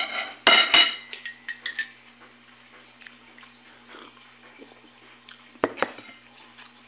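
A metal fork clinks against a glass plate several times in the first two seconds, with a short ring after the loudest clinks. Then comes a quiet stretch with a faint steady hum, and two more clinks of tableware near the end.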